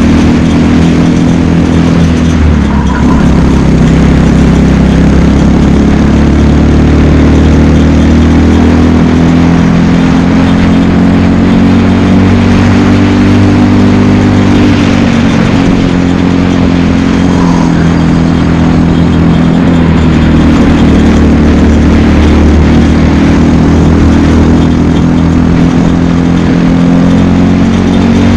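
Briggs & Stratton LO206 single-cylinder four-stroke kart engine at racing speed, heard close up from on board the kart. Its pitch rises and falls repeatedly as the kart speeds up and slows for corners.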